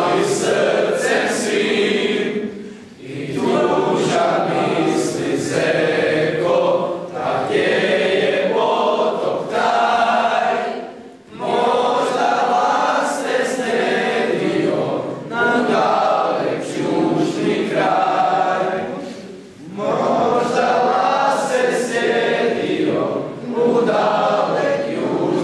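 A group of teenage boys singing a song together in chorus, in phrases broken by short pauses for breath.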